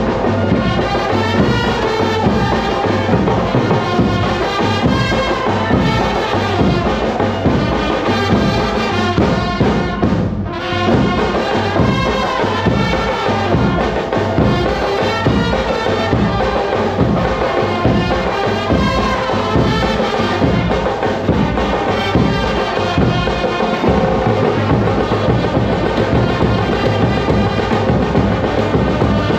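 Live brass band playing: trumpets and saxophones carry a melody over a steady beat of bass drum and side drums.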